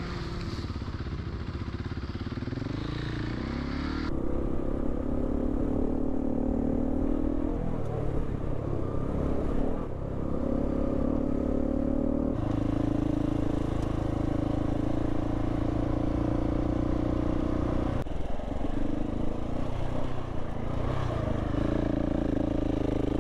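Adventure motorcycle's engine running steadily while riding a dirt trail, picked up close by a handlebar-mounted microphone. The engine note jumps abruptly to a new pitch three times.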